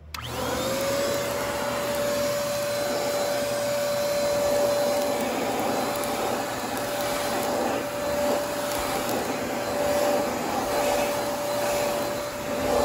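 Eureka handheld vacuum cleaner switched on: its motor spins up in under a second to a steady whine and keeps running with a rush of air.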